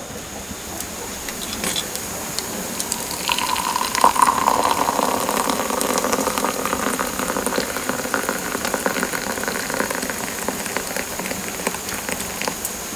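Tea pouring from a clay teapot into a ceramic cup, a steady trickling stream that starts about three seconds in. Before it, the crackle of a wood fire.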